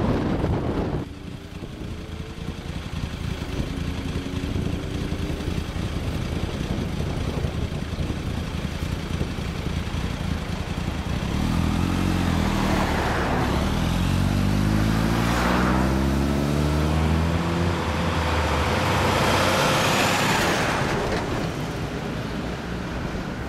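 Kawasaki ZZR1100 inline-four breathing through an SP Tadao aftermarket exhaust, running at idle and then pulling away, its note climbing as it accelerates about halfway through. Other traffic swells past several times.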